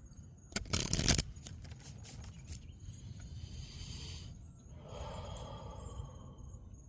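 Outdoor ambience with faint, high chirping throughout. A brief loud rush of noise comes about half a second in, and softer rustling hiss follows later.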